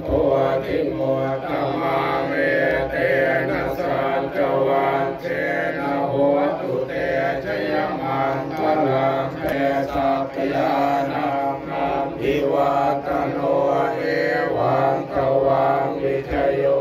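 Buddhist chanting: several voices chanting together in a steady, continuous drone.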